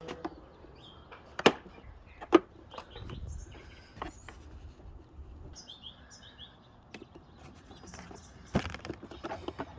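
Sharp plastic knocks and clicks as the Kärcher pressure washer's plastic housing and handle frame are handled on a wooden workbench. The two loudest come about a second and a half and two and a half seconds in, and a quicker cluster comes near the end. Birds chirp faintly in the background.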